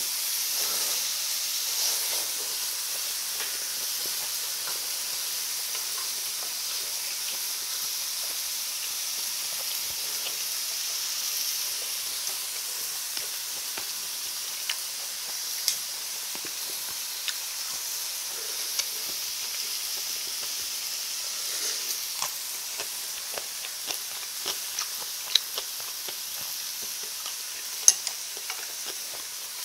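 Beef, scallops and mushroom slices sizzling steadily on a hot grill pan, a continuous high hiss that eases slightly over time. Short sharp clicks, such as chopsticks on dishes, come now and then, more often in the second half.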